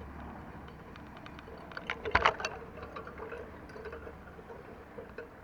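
Scattered light clicks and knocks over a faint steady hum, with a quick cluster of sharper knocks about two seconds in.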